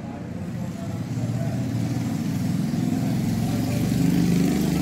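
A motor vehicle engine running steadily, growing louder toward the end.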